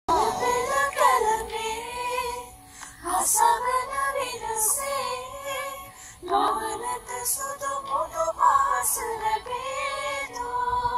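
A group of young women singing a Sinhala song together, the melody carried in long phrases with short breaks between them.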